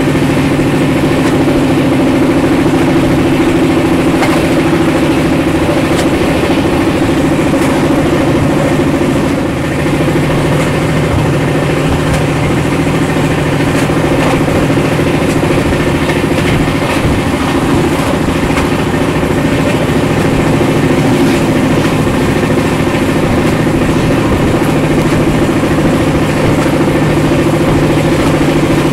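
Konark Express passenger train running on the line, heard on board: a steady low hum and rumble of the moving train, with faint scattered clicks from the track.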